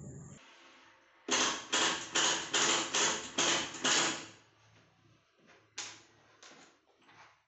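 Workshop work sounds: a quick, regular run of about eight noisy strokes, roughly three a second, then a few scattered fainter knocks.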